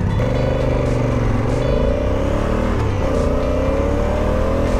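Honda CRF1000 Africa Twin's parallel-twin engine pulling away and accelerating. Its pitch climbs and drops back with an upshift about a second and a half in and again about three seconds in, then climbs once more.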